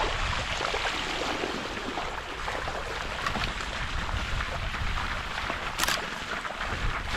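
Mountain bike tyres rolling and splashing through running water on a wet track, a steady rush with many small crackles, over a low wind rumble on the microphone.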